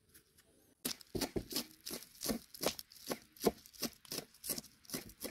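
Knife chopping on a cutting board: a steady run of sharp chops, about three a second, starting about a second in.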